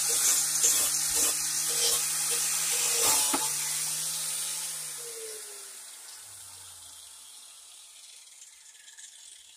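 High-speed grinder taking rust off an old claw hammer: a loud high hiss over the motor's hum, with several sharp knocks as the wheel, which is not made for that speed, throws off chunks. About four to five seconds in it is switched off, and the hum drops in pitch and fades as it spins down.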